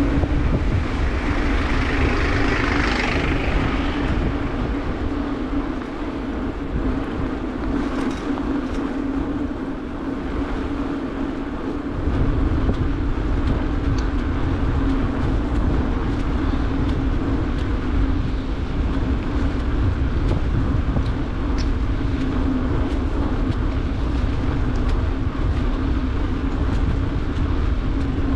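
Bicycle in motion: wind rumbling on the microphone over the tyres rolling on asphalt, with a steady low hum underneath. A brief hiss swells and fades about two to three seconds in, and the wind rumble eases for several seconds before returning about twelve seconds in.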